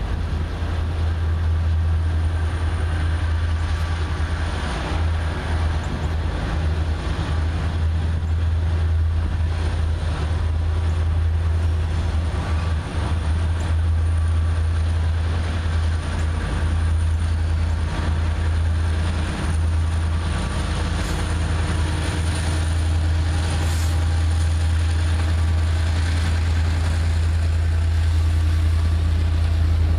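Diesel-electric freight locomotives, led by an EMD SD80MAC with its 20-cylinder engine, running as the train approaches and rolls past close by, a steady low engine rumble over rail and wheel noise.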